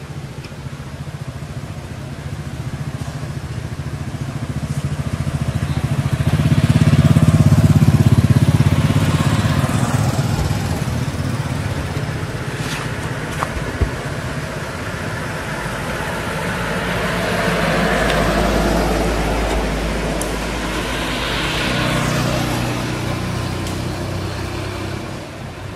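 Engine of a passing motor vehicle, a low steady hum that swells to its loudest about a quarter of the way in, fades a little, then swells twice more. A single sharp click sounds about halfway through.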